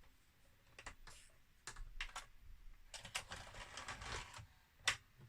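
Small plastic clicks and rattles from a CD player's loading tray mechanism being moved about by hand, in scattered bursts with a quick run of clicks past the middle and one sharper click near the end.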